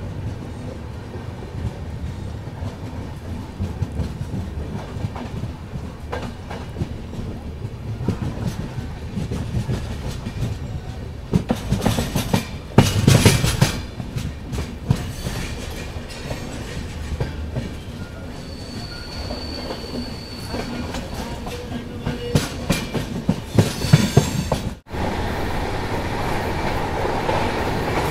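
Moving express train's wheels running on the rails, heard from an open coach doorway: a steady rumble with clickety-clack that gradually grows louder. There are bursts of louder metallic clanks about twelve seconds in and again near twenty-four seconds. After a sudden break, the rumble is louder.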